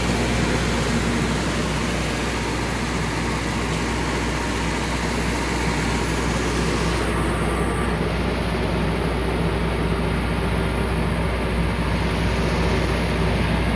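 Engine-driven generator set of a 2008 FMC M10000 30-ton ground air conditioning unit running steadily at constant speed, heard close to its exhaust muffler. It makes an even, unbroken drone.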